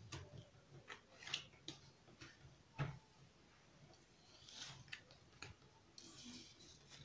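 Playing cards being dealt and laid down on a table: soft, irregular clicks and taps with a light rustle of cards sliding, the sharpest click about three seconds in.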